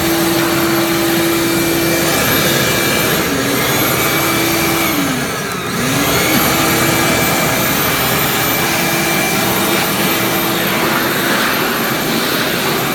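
Small shop vacuum's motor running with a steady whine as it vacuums sanding dust off woodwork. Its pitch sags briefly about three seconds in and again, more deeply, around five to six seconds in, then steadies.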